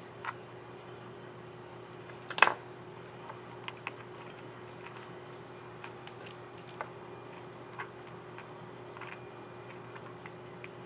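Small plastic clicks and taps of a laptop keycap and its scissor mechanism being handled and fitted onto the keyboard, the loudest a sharp click about two and a half seconds in. A steady faint hum runs underneath.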